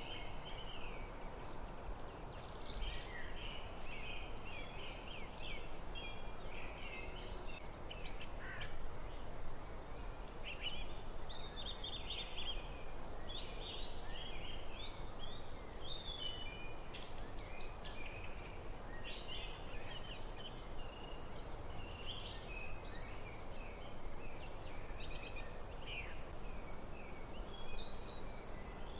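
Several birds singing and calling in a forest, many short chirps and whistles overlapping throughout, over a steady low background noise.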